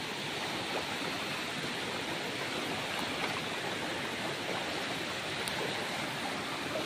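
Muddy, rain-swollen stream rushing over rock slabs at the lip of a waterfall: a steady, even rush of water.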